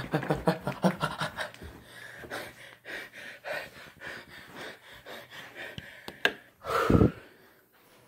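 A person panting hard and fast while running up carpeted stairs, with scattered footfalls and rustling. Near the end comes one short, loud voiced exhale that falls in pitch.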